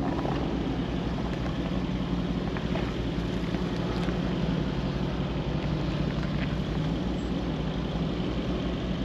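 Mercedes G-Class V8 engine running steadily at low revs as the truck crawls along a rough track, with a few faint clicks from the tyres over leaves and stones.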